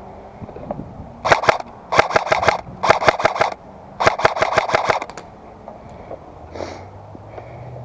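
Airsoft gun firing on full auto in four short bursts of rapid clicks.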